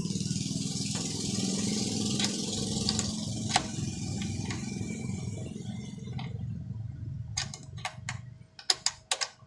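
A steady engine-like rumble that fades out about eight seconds in. It is followed by a quick run of sharp metallic clicks and knocks as the welding machine's cable connectors are handled.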